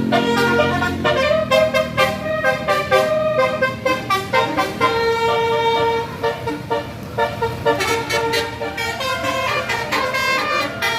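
Tour bus's Basuri 'telolet' multi-tone air horn playing a tune, stepping through short and held notes in a steady rhythm.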